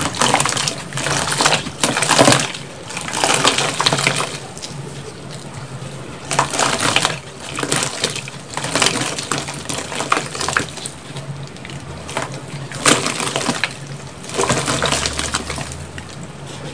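Dry reformed chunks of gym chalk, cornstarch and charcoal powder crumbled by hand into a tub of water: gritty crumbling with the pieces splashing and sloshing in the water. It comes in repeated bursts about a second long, with short lulls between.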